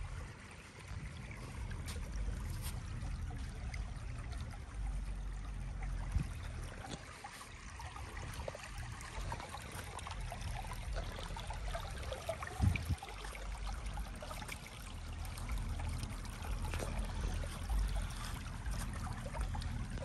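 Shallow spring-fed stream trickling over sand and pebbles in a steady wash, with a low rumble underneath and a few footsteps on wet gravel.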